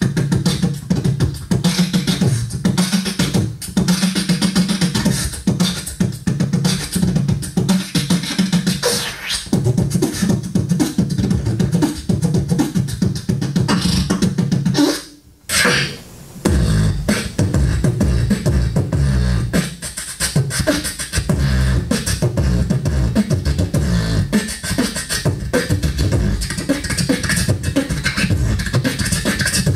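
Human beatboxing into a handheld microphone: a fast rhythmic beat of mouth-made drum sounds. It breaks off briefly about halfway through, and a second beat with heavier bass follows.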